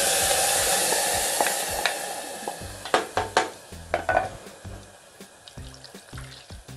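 Water poured into a hot pressure cooker of frying ground masala paste, hissing and sizzling loudly, then fading over about two and a half seconds. After that come a few sharp clinks and knocks of metal utensils against the cooker.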